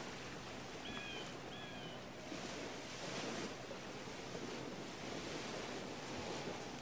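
Sea surf washing on a beach, a quiet, even wash of noise. About a second in come two short, high cries.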